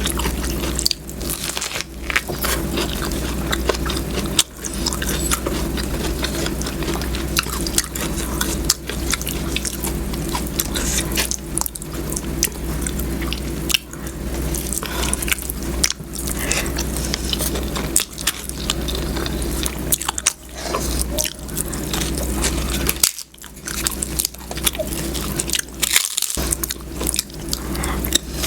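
Close-miked eating: a person chewing and biting food with wet smacks and crunches, over a steady low hum.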